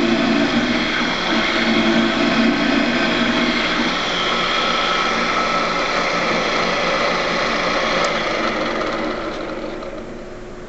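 Drill press motor running steadily, then winding down and fading over the last couple of seconds.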